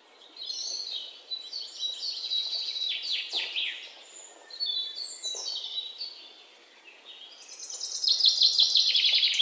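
A songbird singing high, varied warbling phrases broken by short pauses. Near the end a faster, louder run of repeated notes comes in.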